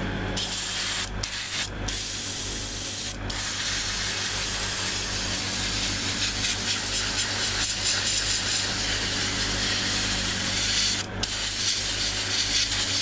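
Airbrush spraying paint with a steady hiss, stopped briefly a few times in the first few seconds and once near the end as the trigger is let off.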